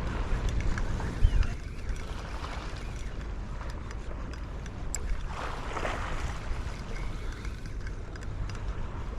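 Wind buffeting the microphone over a steady wash of sea, with a brief swell of noise about five and a half seconds in.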